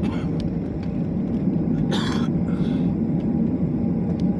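Airliner's jet engines and airframe heard from inside the passenger cabin as a loud, steady low rumble, with a brief hiss about two seconds in.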